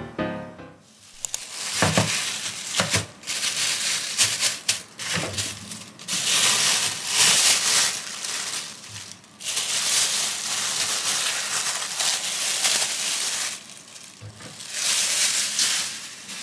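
Clear plastic bag crinkling and rustling in long bursts as it is handled. A few sharp clicks or knocks come in the first seconds.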